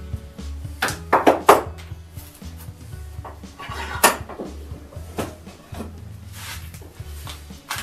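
Background music with a steady low bass line, over the knocks and clatter of a hand brace and auger bits being handled and set down on a wooden workbench. The loudest clatters come in a quick cluster about a second in and again about four seconds in.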